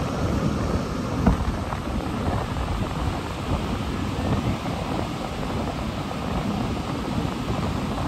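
Wind buffeting a phone's microphone: a steady rumbling rush of noise, heaviest at the low end.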